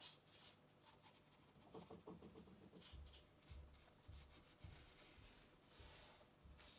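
Near silence, with faint rubbing and handling noises and a few soft low bumps in the second half.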